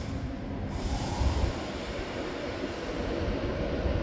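Avanti West Coast Class 390 Pendolino electric train pulling away from the platform, with a steady low rumble from its wheels and running gear. A short hiss fades out right at the start.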